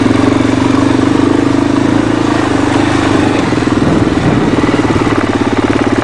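A vehicle's engine running steadily at an even, low speed while driving, a constant pulsing hum.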